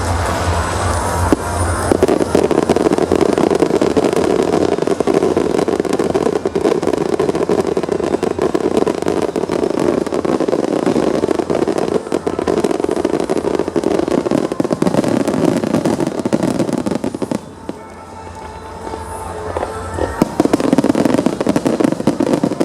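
Fireworks display: a dense barrage of shell bursts and crackling from about two seconds in, easing off briefly near the end before another round of bursts, with music playing under it.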